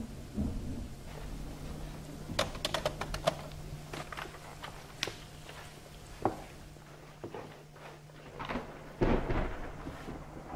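Film sound design: a low steady hum under a scatter of sharp clicks and knocks, with a heavier thump and rumble about nine seconds in.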